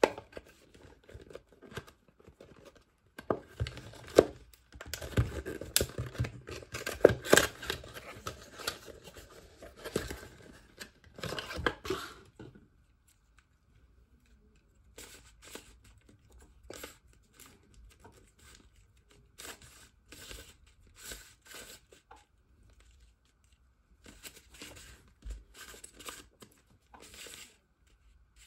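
Paper wrapping being torn and peeled off a puzzle cube: dense rustling and tearing for about the first twelve seconds. After that come quieter, scattered clicks and scrapes of the cube's plastic layers being turned by hand.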